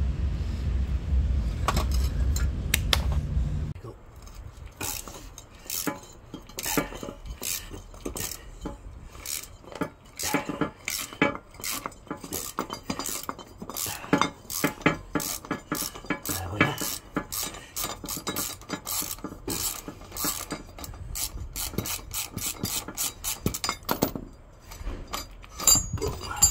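Hand tools clicking and clinking on metal: a long run of irregular ratchet clicks and clanks, as bolts are screwed back into a car's axle mountings. A steady low hum stops about four seconds in.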